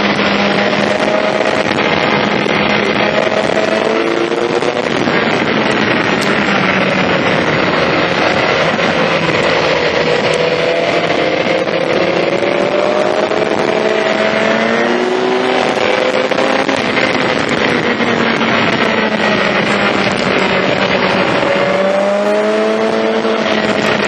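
BMW S1000XR's inline-four engine through an Akrapovic exhaust while riding: the engine note climbs and drops several times as the gears change, over steady wind noise.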